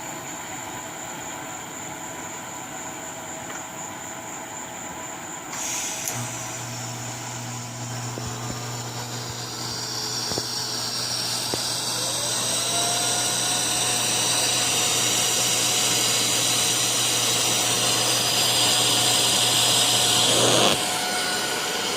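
TIG welding arc burning for about fifteen seconds: a steady electrical hum with a hiss that grows louder and brighter, then stops abruptly when the torch is lifted. Before the arc strikes, a faint high whine stops about five seconds in.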